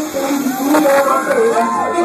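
Several people's voices shouting and singing over party music.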